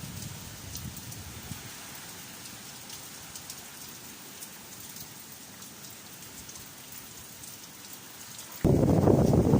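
Steady typhoon rain hissing, with scattered drops ticking close by. Near the end a strong gust hits suddenly and buffets the microphone with a loud low rumble.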